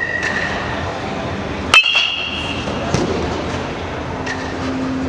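A metal baseball bat striking a pitched ball: one sharp ping with a ringing tone about two seconds in, then a fainter knock a second later.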